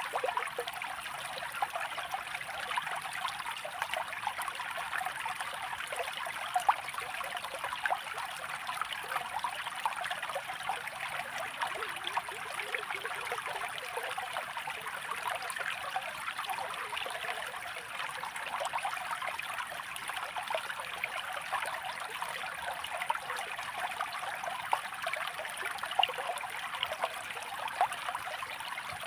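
Running water trickling and splashing steadily, like a small stream, with many small splashes and no change over the whole stretch.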